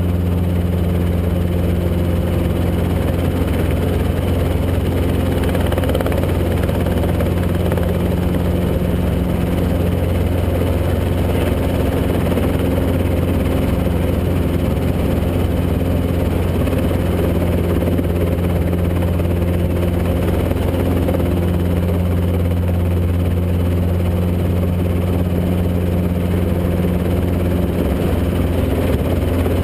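Robinson R22 helicopter's piston engine and two-blade rotor running steadily, heard from inside the cockpit as a loud, even drone with no change in pitch.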